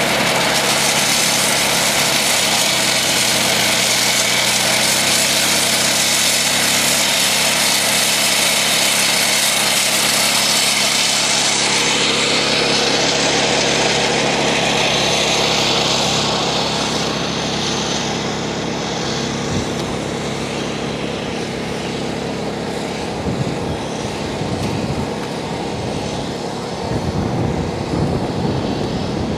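Gas-engine walk-behind wet saw cutting asphalt: a steady engine note under a loud, high hissing blade. About halfway through the hiss fades and the saw sinks to a quieter, more distant drone, with a few knocks near the end.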